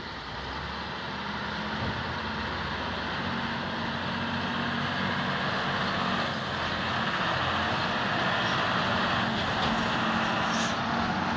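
Diesel engines of two Hino dump trucks running at low speed as they crawl up and pass close by on a rough dirt road, growing louder over the first couple of seconds and then holding steady.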